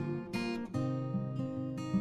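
Background music played on acoustic guitar: strummed and plucked chords with a few notes that slide in pitch.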